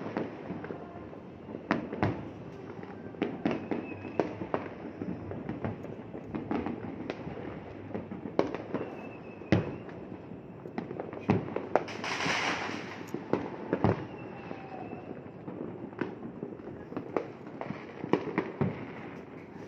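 Aerial fireworks going off: an irregular series of sharp bangs, at times several close together, with a hissing burst lasting about a second about twelve seconds in.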